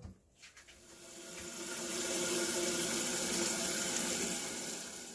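Water running from a tap, swelling up over the first two seconds, holding steady, then fading out near the end.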